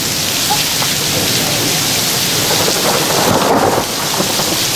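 Heavy rain pouring steadily, with a rumble of thunder swelling about three seconds in from a close cloud-to-ground lightning strike.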